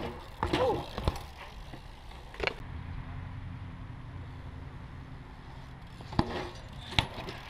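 A BMX bike's pegs and tyres knocking on a concrete skatepark ledge during a grind and the drop-off: a run of sharp knocks with a short scrape about half a second in, the loudest right at the start and near six and seven seconds in.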